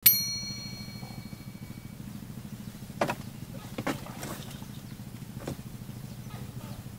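A small engine running steadily with a low hum. A bright ringing ding at the very start fades over about two seconds, and a few sharp knocks come about three, four and five and a half seconds in.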